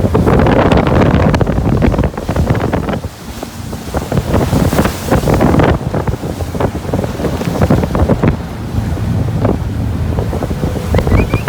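Gusts of wind buffeting the microphone over the steady rush of the waterfall's water around the tour boat.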